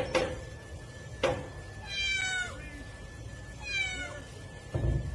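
Cat meowing twice, each a falling call, with a sharp click about a second in and a low thump near the end.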